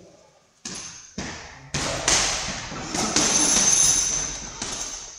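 Boxing-gloved strikes landing on a leather heavy bag: about seven sharp thuds at an uneven pace, each dying away quickly.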